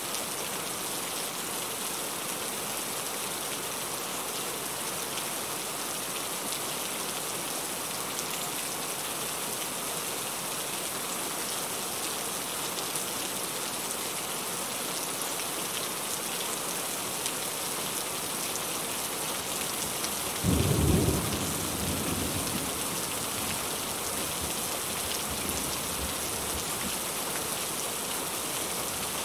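Heavy rain falling in a steady hiss. About two-thirds of the way through, a sudden low clap of thunder breaks in and rumbles off over a couple of seconds.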